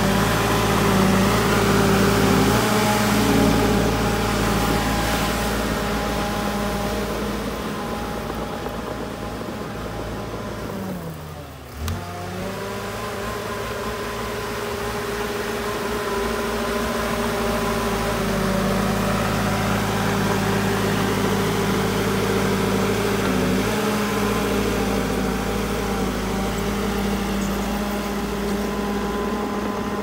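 Diesel engine of heavy earthmoving machinery running steadily under load, its pitch dipping sharply and climbing back about twelve seconds in.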